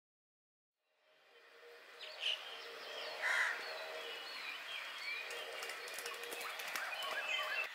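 Silence, then from about a second in, a busy chorus of many birds chirping and calling, with a few louder calls standing out.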